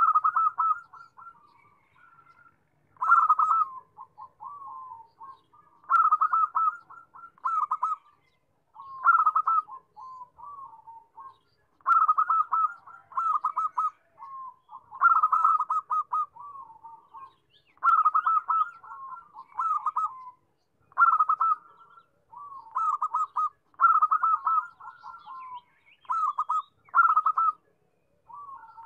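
Zebra dove (perkutut) singing: a burst of rapid, staccato cooing notes about every three seconds, with softer trailing coos in between.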